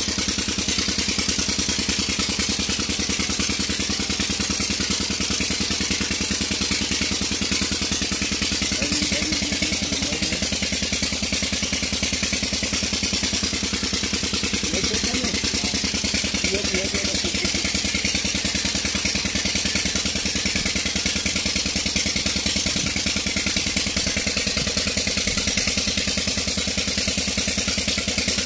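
Old Petter stationary diesel engine running steadily at an even speed.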